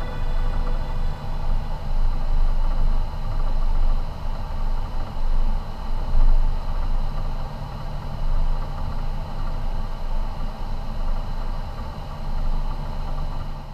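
Airliner jet engines at taxi idle, heard from inside the cockpit: a steady low rumble with a faint steady whine above it.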